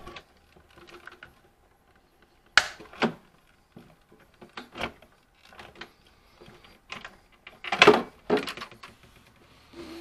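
Irregular clicks, knocks and rustling of hands handling a refrigerator inverter board and its wiring while pressing it onto the compressor, with a sharp clack about two and a half seconds in and the loudest knocks around eight seconds in.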